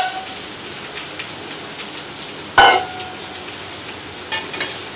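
Onions and mashed potato frying in oil in a steel pan, a steady sizzle. A loud metal clank about two and a half seconds in, and a few light clinks of the ladle stirring near the end.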